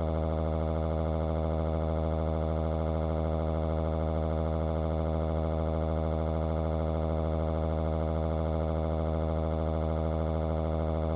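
A steady electronic drone holding one unchanging low pitch, cutting off suddenly near the end.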